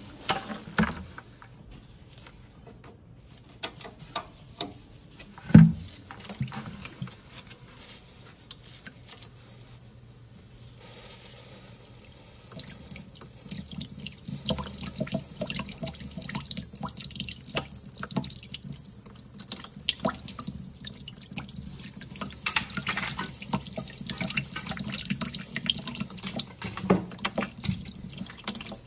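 Water running and dripping from a hot-water radiator's bleed valve into a plastic bucket as the radiator is bled of trapped air, because the zone is not circulating. One louder knock about five and a half seconds in.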